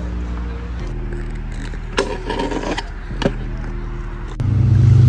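Freestyle scooter wheels rolling on skatepark concrete, with a scraping grind about two seconds in as the scooter slides along a concrete curb. The rolling rumble gets much louder near the end.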